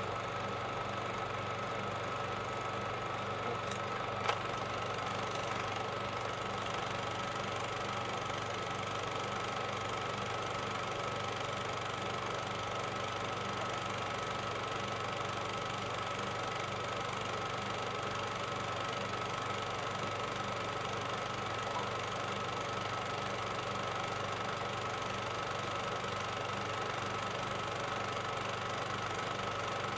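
Steady mechanical hum and hiss with a constant high whine running through it, unchanging throughout, with a single short click about four seconds in.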